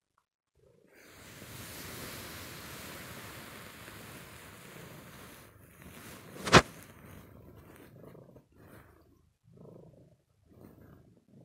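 Wool blankets rustling and brushing against the phone's microphone as it pushes in under them, with one sharp knock on the phone about six and a half seconds in. Short, soft, low rustles follow near the end.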